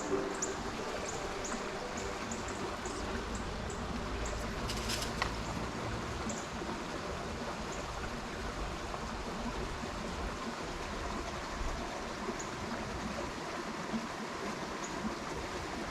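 Trout stream flowing steadily, a constant rush of water, with a few faint high ticks and one light click about five seconds in.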